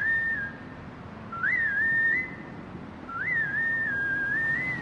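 Whistling: a short whistled phrase that swoops up and then holds a level note, heard three times, each a little longer than the last.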